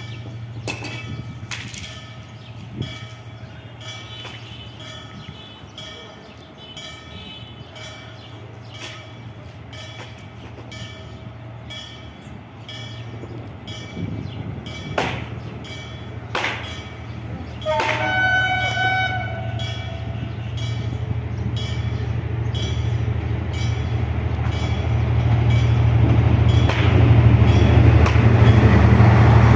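Two diesel locomotives hauling a track-renewal train approach at speed; their engines' low rumble grows steadily louder as they near. A multi-tone train horn sounds about 18 seconds in, and there are a few sharp knocks shortly before it.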